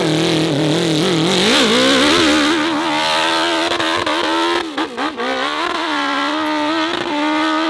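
Off-road motorcycle engine revving under changing throttle, its pitch rising and falling unevenly. A brief drop a little past halfway, then it holds a steadier note.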